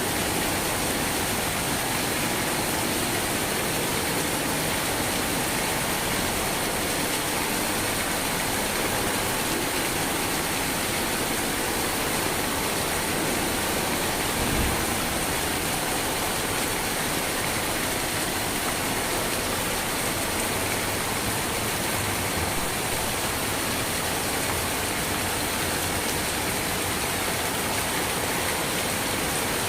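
Steady rain falling in an even hiss, with a brief low thump about halfway through.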